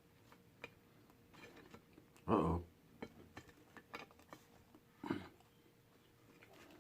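Faint scattered clicks and taps of food being handled and prepared. A man says a short "uh-oh" about two seconds in, and makes another brief vocal sound about five seconds in.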